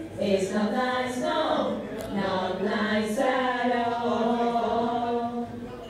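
A single voice singing long held notes that glide from pitch to pitch, with a short break about three seconds in.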